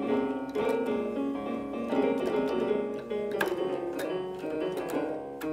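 Electronic keyboard played with both hands, several notes sounding together and changing throughout, in the key of C-sharp major.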